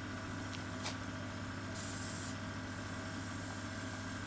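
The oxygen spray gun of a GL3 oxygen facial machine lets out one short hiss of spray, about half a second long, about two seconds in. The machine's compressor runs with a steady hum underneath.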